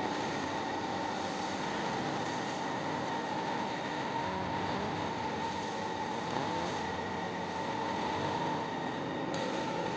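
Arc welding laying a hardfacing bead on a rotor: a steady hiss with a constant high whine running under it.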